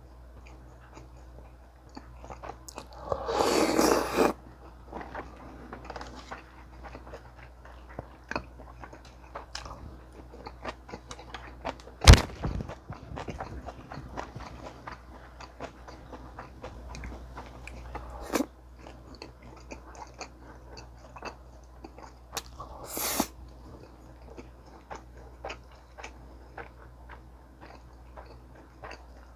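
Close-miked chewing and crunching of a Korean meal of sundae gukbap with kimchi and kkakdugi (cubed radish kimchi): many small wet mouth clicks. There is a louder stretch about three seconds in and a single sharp knock about twelve seconds in.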